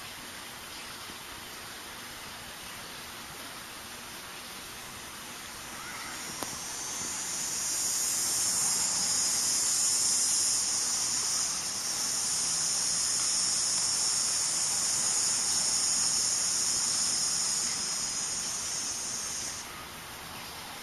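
A steady, high-pitched hiss that swells in about six seconds in, dips briefly partway through and stops abruptly near the end, over a fainter steady background hiss.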